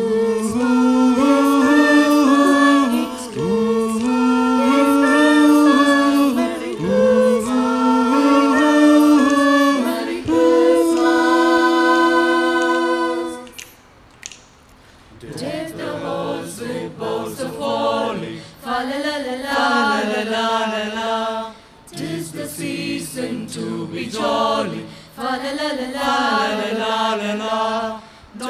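Mixed vocal group singing a Christmas carol medley a cappella in harmony. Long held chords in the first half break off about halfway through, and after a short pause the singing resumes with shorter, livelier phrases.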